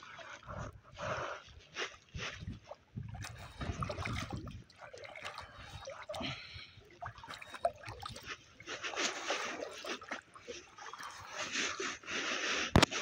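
Kayak paddle dipping and splashing in the water beside an inflatable kayak, stroke after stroke, with water trickling off the blade. A sharp knock near the end.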